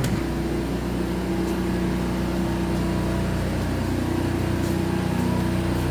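A motorhome's onboard generator running under load, a steady engine hum that gets a little louder.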